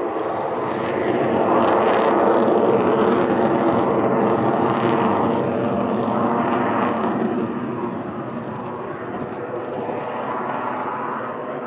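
Twin AL-31F afterburning turbofans of a Sukhoi Su-30MK2V fighter jet manoeuvring overhead: a loud rushing jet roar that swells in the first couple of seconds, then slowly fades as the jet moves away.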